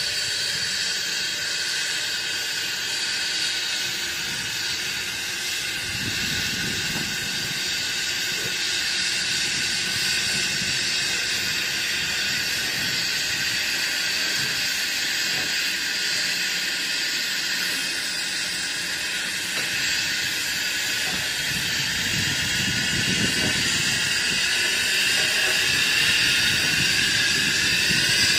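Steam locomotive standing and venting steam: a steady, loud hiss. A low rumble comes and goes underneath, once a few seconds in and again in the last third.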